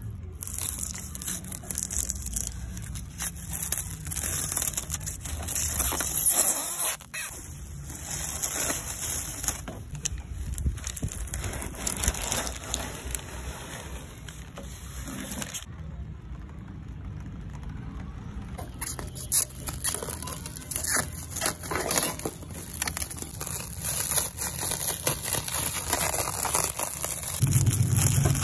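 Clear plastic stretch wrap crackling and crinkling as it is slit with a snap-off utility knife and pulled off a steel roof rack, with irregular tearing and rustling throughout.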